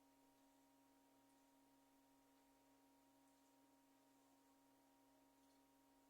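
Near silence: a faint, steady low hum with a light hiss under it.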